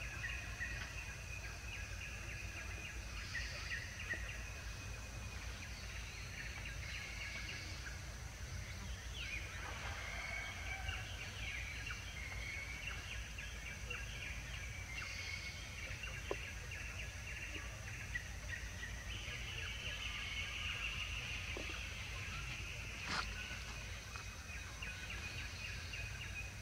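Outdoor woodland ambience: birds calling on and off over a steady high insect drone and a low rumble, with a sharp click about 23 seconds in.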